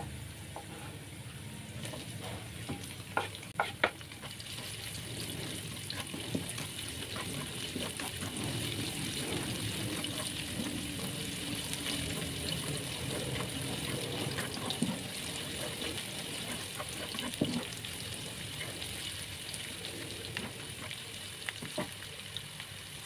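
Shallots and garlic sizzling as they are sautéed in hot oil in a pan, with a few sharp clinks of the stirring utensil against the pan three to four seconds in. The sizzle builds up, holds through the middle and eases off toward the end.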